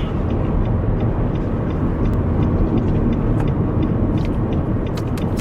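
Car interior road noise while driving: a steady rumble of engine and tyres, with faint regular ticks about twice a second.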